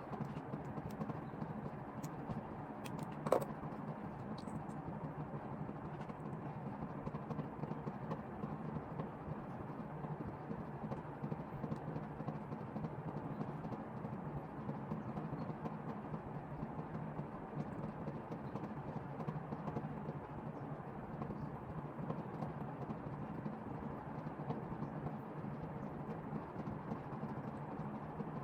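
Steady background noise, with one sharp click about three seconds in and faint small ticks now and then.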